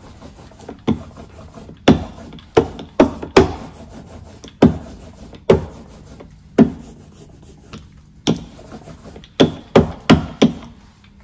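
A hand roller (brayer) rolling back and forth through tacky etching ground on a slab, rubbing, with a dozen or more sharp, irregularly spaced clacks as the roller is worked in different directions. This is the ground being rolled out into an even layer on the roller before it goes onto the copper plate.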